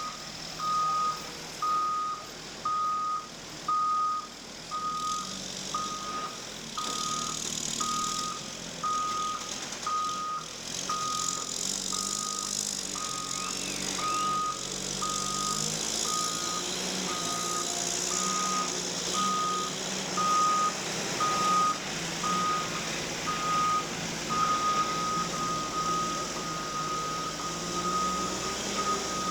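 Forklift reversing alarm beeping about once a second over the forklift's running engine. Near the end the beeps run together into an almost steady tone.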